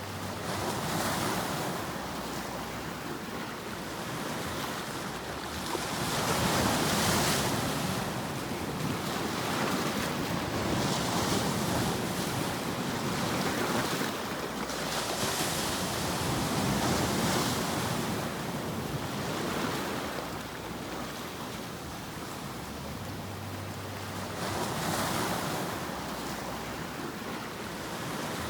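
Ocean surf: waves washing in and drawing back, swelling into a hiss about every four to five seconds.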